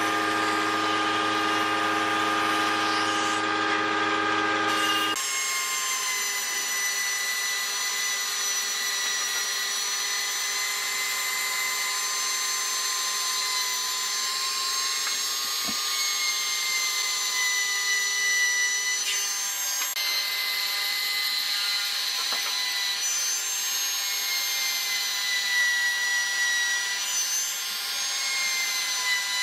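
A compact trim router whines at high speed as it cuts into a thick wooden slab, its pitch dipping slightly now and then under load. For the first five seconds or so a different steady, low-pitched motor hum is heard, which cuts off abruptly before the router sound begins.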